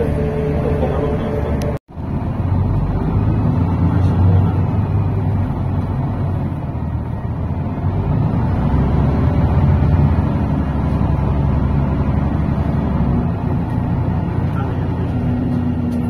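GolAZ AKA-5225 articulated city bus heard from inside while driving: steady engine and road noise, strongest in the low range. The sound cuts out for a moment about two seconds in.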